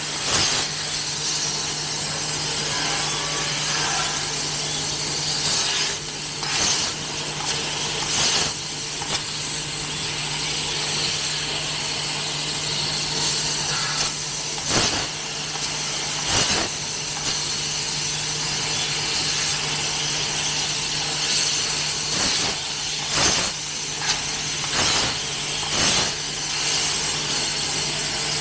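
CNC fiber laser tube cutting machine running: a steady hiss over a low hum, with short sharp bursts every few seconds.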